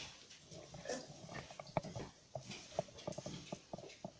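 A wooden spatula knocking and scraping against a stainless steel frying pan as rice is stirred, heard as a run of light, irregular clacks over the second half.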